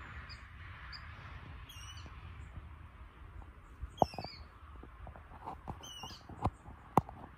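Water rail calling from the marsh: short high-pitched calls, falling or wavering in pitch, three times about two seconds apart. A few sharp knocks from the recording phone being handled come in the second half and are louder than the calls.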